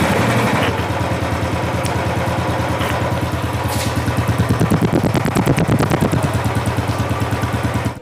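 Royal Enfield Bullet's single-cylinder engine idling through its stock silencer, with an even beat of exhaust pulses. The pulses come a little stronger for a few seconds in the middle.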